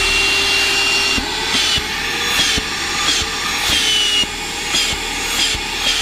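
Tsumbay corded car vacuum cleaner motor running with a steady whine. From about a second in, the pitch wavers up and down, with scattered clicks and knocks as the nozzle is worked over the car's interior. It settles back to a steady whine near the end.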